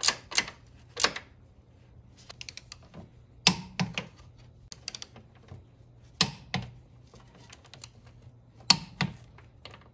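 Sharp metallic clicks and clinks from a wrench and a torque wrench on a car's front strut top-mount nuts as they are tightened to torque. The clicks come in small clusters of two or three, spaced a second or more apart.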